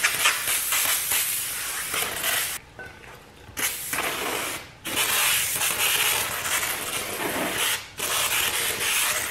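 Aerosol can of brake cleaner spraying onto a new steel brake rotor to strip its anti-rust coating. It hisses in four bursts with short pauses between them, the longest pause about a third of the way in.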